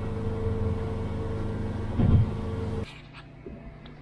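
Boat engine running steadily at low speed, a low drone with a thump about two seconds in. The drone cuts off abruptly near three seconds, leaving a faint low hum and a few light clicks.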